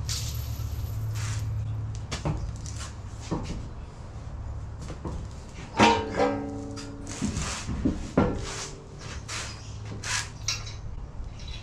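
Metal hand tools clinking and knocking against the car's wheel and suspension parts over a steady low hum. About six seconds in comes one loud metallic clang that rings for about a second, and a smaller ringing knock follows about two seconds later.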